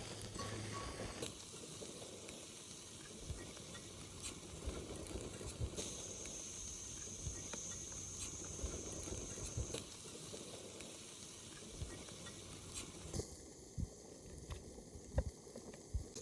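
Food frying in a pan: a faint, steady sizzle with scattered light clicks and crackles.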